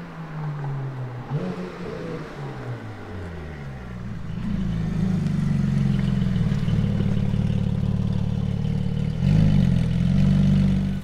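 Porsche 718 Spyder's 4.0-litre naturally aspirated flat-six through a Tubi Style catback exhaust. In the first seconds the revs drop and rise a few times as the car rolls along. From about four seconds in it settles into a louder, steady idle, with a brief rise in revs near the end.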